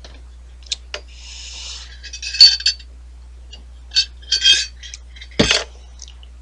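Glass bottle clinking and tapping as it is handled and drunk from, with a heavier knock a little over five seconds in.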